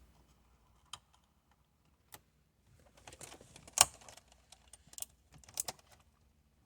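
Small plastic clicks and taps from a replacement start/stop button cap being pushed onto the button in a BMW 128i's dash. They grow busier near the middle, where one sharp snap stands out as the cap clicks into place.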